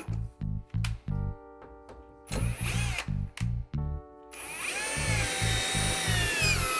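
Ryobi cordless drill driving screws through the door jamb and shims into the stud, in two runs: a short burst about two and a half seconds in, and a longer run from about four seconds on. In the longer run the motor's whine rises and then slowly falls in pitch as the screw drives home.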